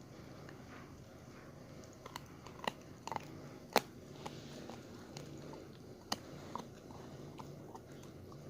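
A dog chewing a raw chicken foot: quiet, irregular crunching with a few sharp cracks of the small bones, the two loudest a couple of seconds apart.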